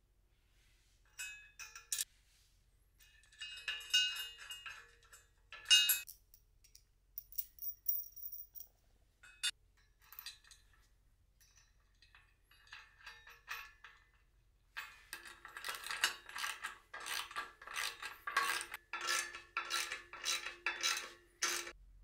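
Steel hardware and bracket parts clinking and rattling as bolts and nuts are fitted by hand. In the second half comes a quicker run of regular metallic clicks, about two a second, which stops suddenly just before the end.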